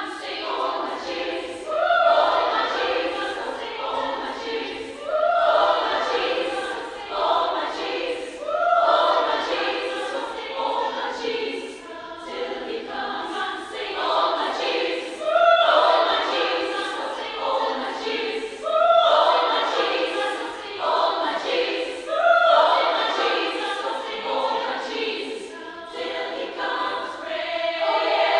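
Women's choir singing a cappella, in lively phrases that repeat about every three and a half seconds.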